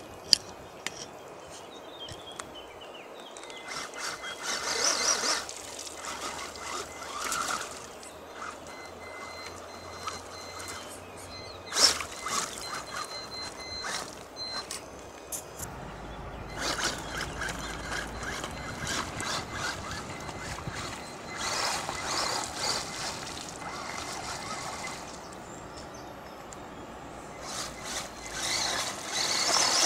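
Wltoys 12428-B 1/12-scale RC buggy's electric motor whining as it drives through a shallow, rocky stream, with repeated surges of water splashing and spraying off its wheels.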